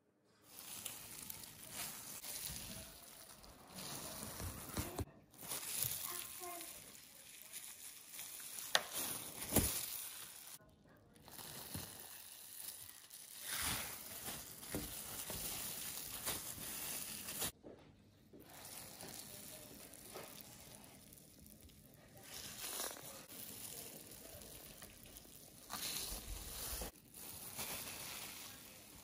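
Plastic glove crinkling and rustling as a hand kneads and smears crumbly chhena (fresh cheese curds) against a smooth worktop, in irregular scrubbing strokes. The sound cuts out briefly about four times.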